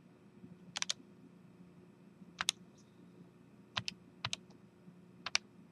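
Buttons on a TI-84 Plus Silver Edition graphing calculator being pressed, heard as a handful of short, sharp clicks at uneven intervals, some in quick pairs, as a wrongly entered tangent value is re-keyed. A faint steady low hum sits underneath.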